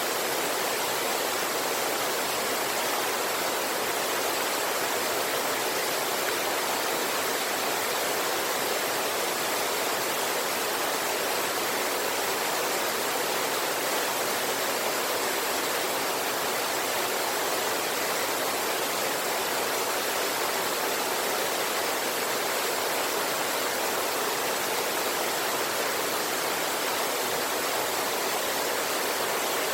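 River water rushing over a waterfall, a steady unbroken wash of water noise with no change.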